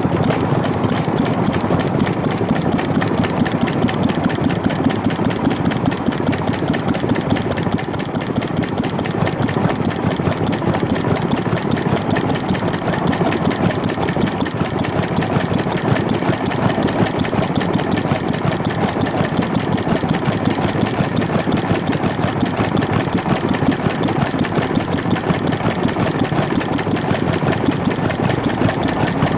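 Old single-cylinder stationary farm engine (hatsudōki) running at a steady speed with a rapid, even clatter of firing strokes. It is a sick, badly maintained engine.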